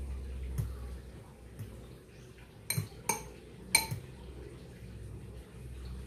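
Clinks against a small glass bowl as a flour-coated chicken roll is dipped and turned in beaten egg: a few soft knocks, then three sharp clinks close together in the middle, the last the loudest, over a faint low hum.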